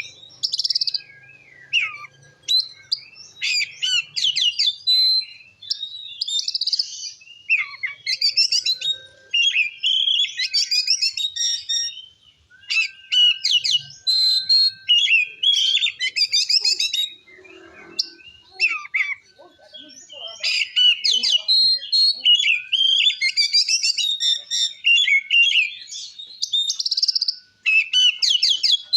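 Oriental magpie-robin (kacer) singing loudly and continuously: phrase after phrase of clear whistles, pitch slides and rapid trills, with short pauses in between.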